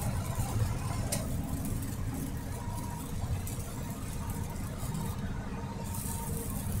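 Steady low engine drone and road noise heard inside a vehicle's cab while driving on a wet highway, with a single sharp click about a second in.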